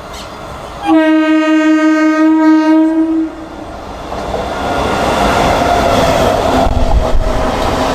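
Indian Railways MEMU electric multiple unit sounding its horn in one steady blast of about two and a half seconds, starting about a second in. After it, the rumble and rail noise of the train grow steadily louder as it approaches.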